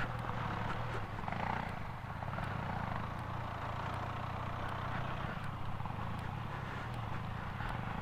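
Benelli TRK 502's parallel-twin engine running steadily while climbing a loose dirt trail, with road and wind noise under it.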